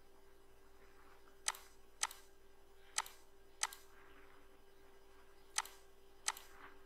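Computer mouse clicking: six short, sharp clicks a second or so apart, over a faint steady hum.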